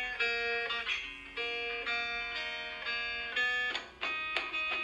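Background music of plucked guitar notes, a new note or chord every half second to a second.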